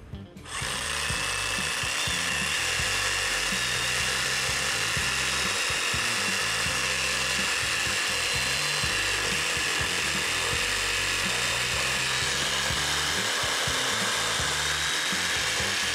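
Bosch GSA18V-LICH cordless reciprocating saw running steadily at full speed, cutting through wood. It starts about half a second in.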